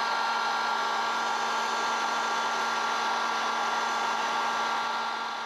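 Hand-held hot-air blower running steadily with a whine, blowing on a campervan's frozen waste-water outlet pipe to thaw it. It fades out near the end.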